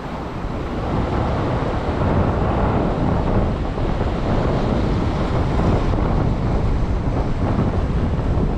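Surf washing and breaking over a rock ledge, with wind buffeting the microphone, a steady rushing rumble that swells about a second in.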